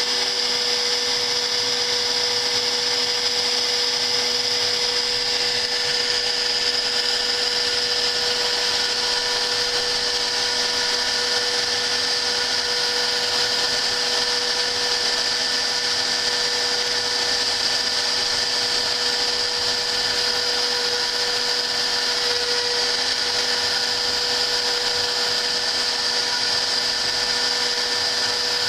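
A hobby CNC router's spindle running steadily while milling a 3D logo: a constant, even whine with a hiss over it and no change in pitch.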